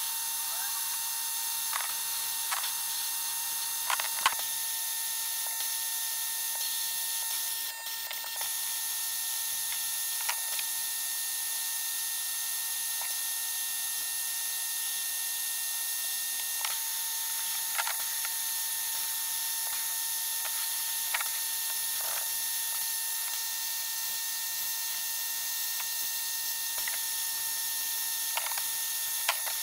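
Sandblast cabinet's blast gun running: a steady hiss of abrasive media blasting paint off pressed-steel toy parts, with scattered sharp ticks of grit and metal knocking.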